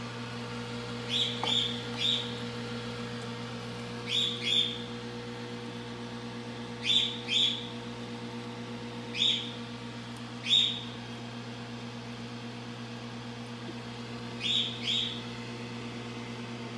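A bird chirping: short high chirps, mostly in pairs, every couple of seconds. Under it runs a steady electrical hum of the kind aquarium pumps make.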